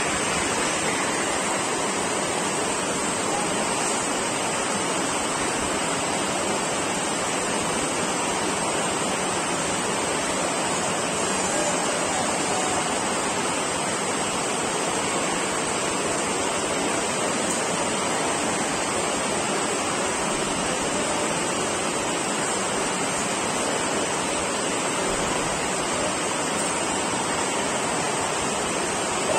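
Steady rushing hiss of a large indoor hall's background noise, level and unchanging, with no distinct knocks or shouts standing out.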